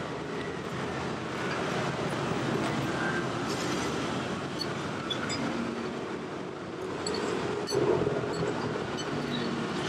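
Steady rumble of street traffic from a busy road, with a few faint clinks of a spoon and fork against a ceramic soup bowl.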